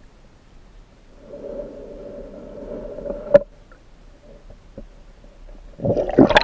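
Muffled sound of a camera held underwater in a river: a low hum for about two seconds ending in a sharp click, then a loud rush and splash of water near the end as the camera breaks the surface.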